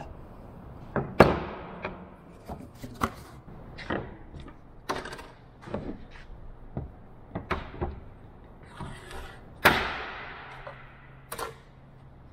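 Irregular knocks, clicks and clatter of steel hinge stock and other items being handled and set down on a workbench. Two louder sharp knocks with a brief ring stand out, one about a second in and one near the end.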